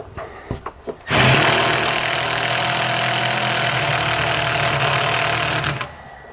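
Cordless power driver running steadily for nearly five seconds, driving a self-tapping screw through a brake-line clamp into a steel trailer frame rail, then stopping. A few light clicks come before it starts.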